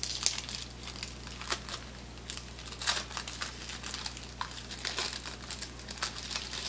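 Paper wrapper of a 1988 Topps Big Baseball Cards pack crinkling as it is torn and peeled open by hand. It comes as irregular crackling, loudest near the start and about three seconds in.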